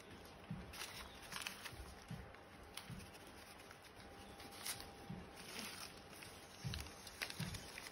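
Quiet, scattered rustling and crinkling of newspaper wrapping, with a few soft knocks against a cardboard box, as succulent cuttings are handled and lifted out.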